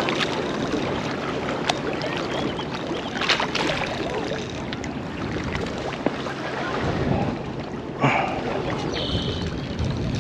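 Small lake waves lapping and splashing at the shore, with wind gusting on the microphone.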